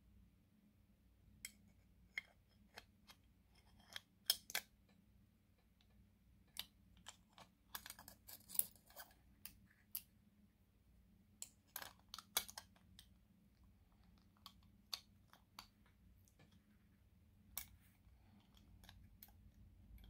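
Irregular metal clicks and taps of a North American Arms .22 mini-revolver being handled and seated into its metal belt-buckle holder, the loudest clicks about four and eight to nine seconds in.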